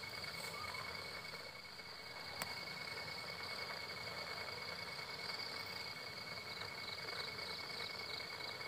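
Insects trilling steadily at two high pitches, with a faint pulsing call joining near the end and a single soft click about two and a half seconds in.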